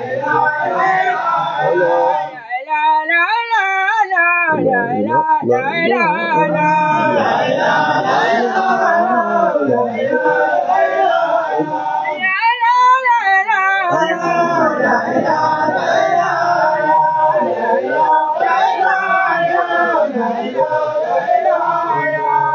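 Men chanting an Islamic religious chant, a wavering, ornamented melody with long held notes and strong vibrato.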